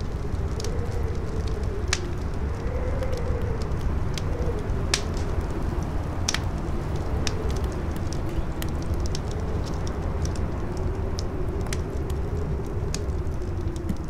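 Campfire crackling with scattered sharp pops, over a strong wind that howls with a slowly wavering pitch and a low rumble underneath.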